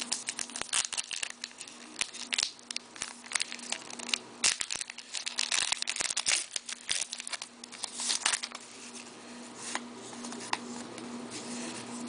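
Hockey card pack wrapper crinkling and tearing as it is opened, with cards being handled. The rustling is busiest for the first eight seconds or so, then thins out.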